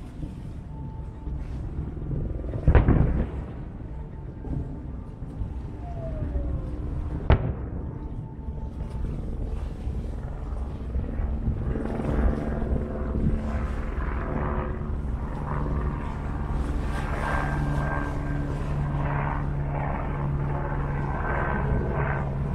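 Aerial firework shells bursting: two sharp bangs, about three and seven seconds in, each followed by a short low rumble. After that there are no more bursts, and a steady low hum with scattered small noises remains.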